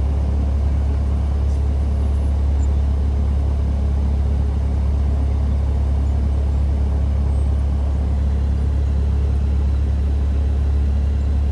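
Cessna 172 Skyhawk's piston engine and propeller running at low taxi power as the plane taxis, a steady, loud, low drone heard inside the cabin.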